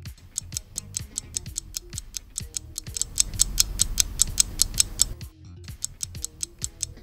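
Countdown-timer sound effect: a rapid, even clock-like ticking, several ticks a second, over background music. The ticks grow louder in the middle and break off briefly a little after five seconds.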